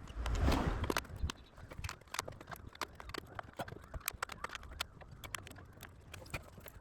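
Irregular light clicks and taps of hand work on a plastic airbox and its fittings, with a louder rustling knock near the start.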